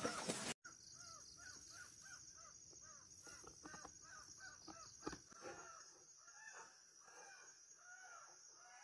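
Faint bird calls, short rising-and-falling notes repeated about three times a second, over a steady high insect drone. A single faint knock comes about five seconds in.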